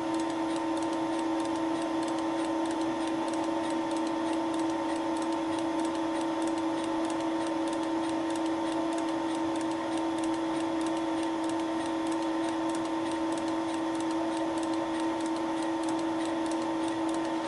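Thiel Duplex 158 milling machine running with a Wohlhaupter UPA5 facing and boring head turning, taking a final light facing cut across a plastic bearing seat: a steady machine hum with a fast, even ticking.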